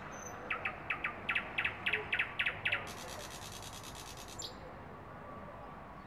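Thrush nightingale singing. A phrase of about a dozen loud, quickly repeated notes, about six a second, runs straight into a fast, high rattle that lasts about a second and a half and ends sharply.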